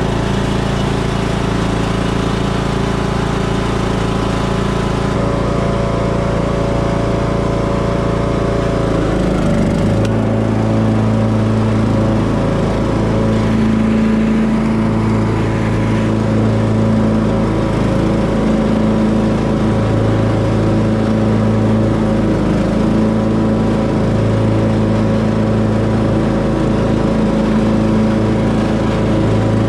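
Craftsman riding lawn mower's engine running steadily as the mower is driven. About nine seconds in, its note drops lower and then holds steady.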